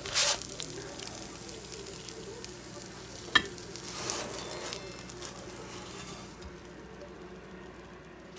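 Gyoza sizzling in a hot frying pan, with a loud burst of sizzle at the start and another about four seconds in. There is one sharp clink a little over three seconds in. The sizzle dies down near the end.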